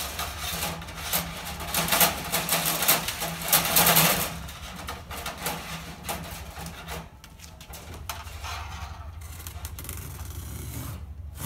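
Steel fish tape rasping and rattling as it is pushed through an aluminum header beam, busiest and loudest for the first four seconds, then dying away. A low steady rumble is left in the second half.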